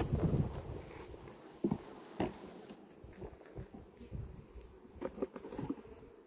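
Irregular knocks and scrapes from wooden beehive frames and boxes being handled, with a cluster at the start and a few sharp knocks later, over a faint hum of honeybees.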